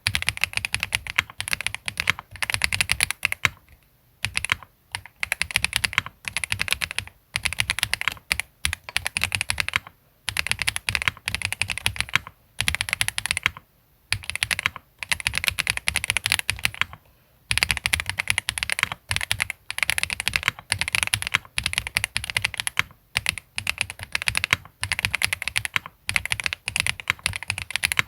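Continuous fast typing on a Tiger 80 Lite custom mechanical keyboard with SWK Mocha switches, PBT keycaps and a polycarbonate plate, foam-dampened and tape-modded. Rapid keystrokes come in runs of a few seconds with brief pauses between them.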